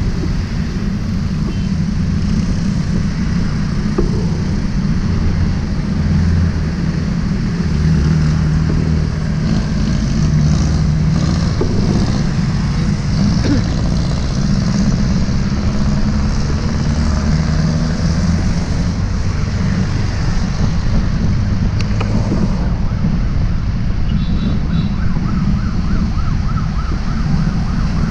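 Busy city road traffic heard from a bicycle riding in the bike lane: a steady, heavy low rumble of passing engines. A wavering siren-like tone comes in near the end.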